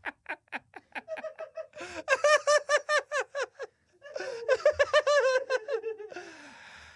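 Men laughing hard and helplessly. Quick breathy pulses at first, then high-pitched bouts of laughter about two seconds in and again about four seconds in, trailing off into a breathy exhale near the end.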